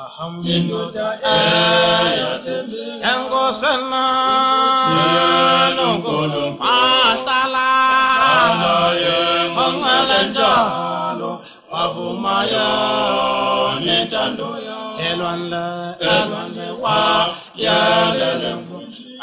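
Traditional African a cappella group singing in close harmony as recorded music, with held chords and sliding notes.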